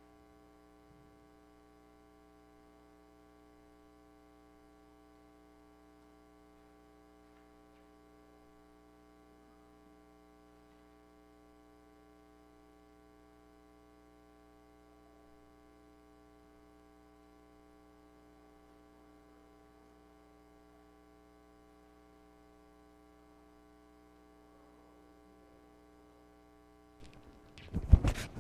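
A low, steady electrical hum made of several fixed tones, over near silence. Near the end it is broken by a sudden burst of loud, irregular knocks and rustling.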